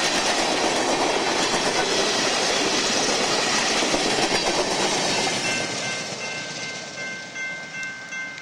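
Empty freight cars, tarped aluminium gondolas, rolling past on steel wheels with a steady rumble and rail noise. The sound drops off about five seconds in as the last car passes and the train moves away, leaving a faint high whine.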